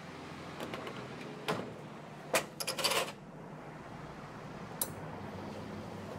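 Small glass shot glasses clinking on the espresso machine's metal drip-tray grate: a few sharp clicks with a quick cluster around the middle. A low steady hum comes in near the end as the brew pump starts.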